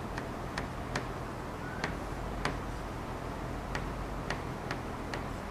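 Sharp, uneven taps and clicks of writing on a board, about nine strokes spaced a third of a second to a second apart, over a low steady room hum.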